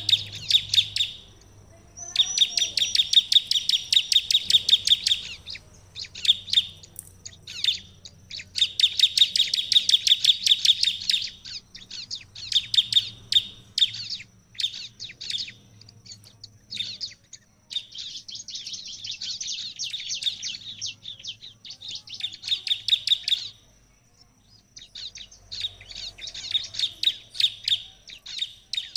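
Bar-winged prinia (ciblek) singing: loud bursts of rapid, rattling trills of many quick repeated high notes, each burst lasting from about one to five seconds, broken by short pauses.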